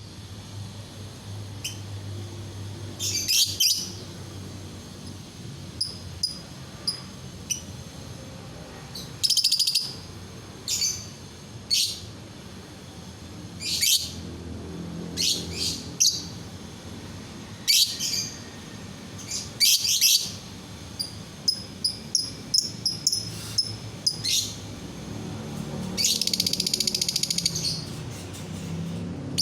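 Lovebird calling: short, loud, shrill chirping bursts every one to three seconds, then a longer rapid trill about 26 seconds in.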